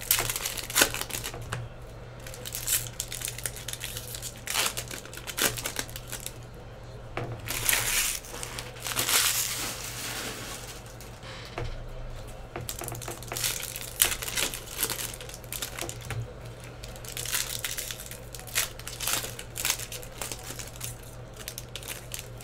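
Upper Deck hockey card pack wrappers crinkling and tearing as they are torn open by hand: irregular rustling and sharp crackles, the longest bursts of rustling in the middle, over a low steady hum.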